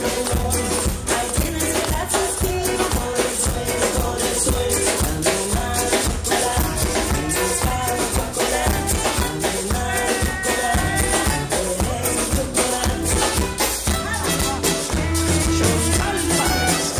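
Live band playing Latin music, with a hand-held metal shaker rattling in a steady rhythm over bass and drums; singing comes in at times.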